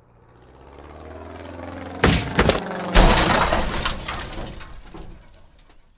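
Sound effect of a WWI biplane crashing: the engine swells in over about two seconds, then come two sharp impacts and a heavier crash about three seconds in, with breaking and shattering debris that dies away.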